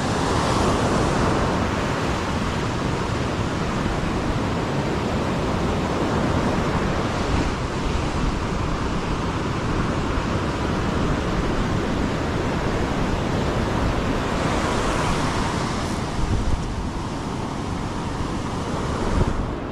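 Ocean surf breaking and washing on a steep beach, a steady rush of waves with wind on the microphone; the wash swells louder near the start and again about fifteen seconds in.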